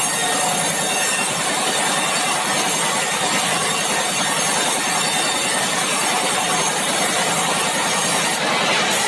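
Sawmill machinery running steadily: an even, loud mechanical noise of the saw and its drive engine, with a fast fine pulsing underneath.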